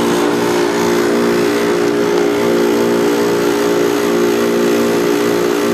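Refrigerant recovery machine running steadily as it pulls the remaining refrigerant out of an air-conditioning system, with a constant mechanical hum.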